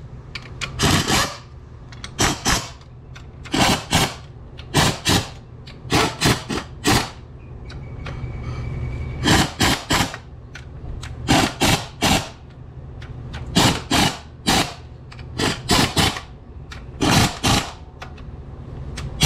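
Hand ratchet clicking in short runs of two or three quick strokes with brief pauses, as the engine mount bolts are run down.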